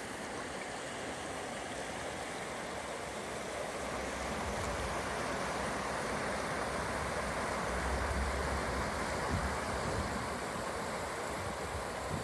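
Shallow river running fast over stones and small rapids, a steady rushing and babbling of water. A low wind rumble on the microphone swells briefly about two-thirds of the way through.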